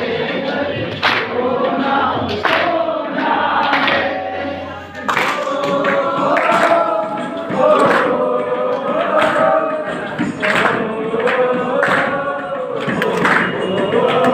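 A group of voices singing a song together, with sharp beats keeping a steady rhythm.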